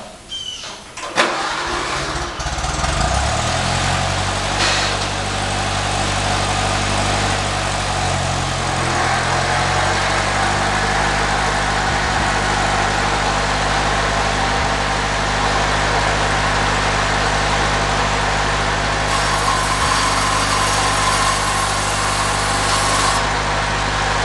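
Farmall Cub tractor's four-cylinder engine starting after a few knocks, catching a couple of seconds in and then running steadily, with a brief change in speed partway through. Near the end a higher-pitched whine joins it for a few seconds.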